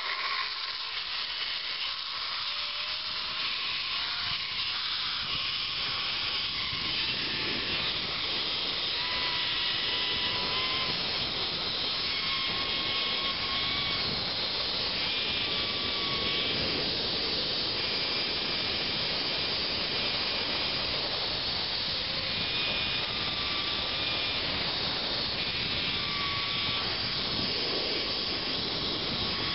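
Zipline trolley running down a steel cable at speed: a steady rushing hiss that builds over the first several seconds. Short faint whistling tones come and go over it.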